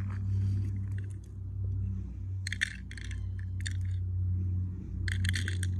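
Small gravel pebbles dropped by hand into a small plastic box, rattling in short clusters of clicks about two and a half seconds in and again near the end, over a steady low rumble.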